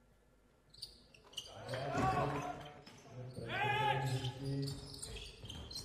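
A basketball bouncing on a hardwood court, with sharp knocks, and two loud shouts from people in the hall, one about two seconds in and a longer one nearer the end.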